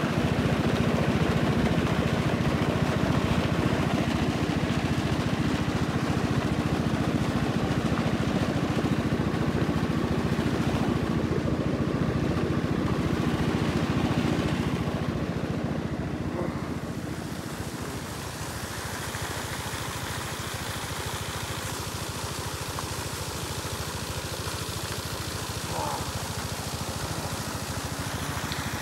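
A steady engine drone with churning water. It drops in level about halfway through.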